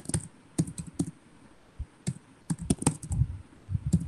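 Typing on a computer keyboard: short irregular runs of keystrokes with brief pauses between them.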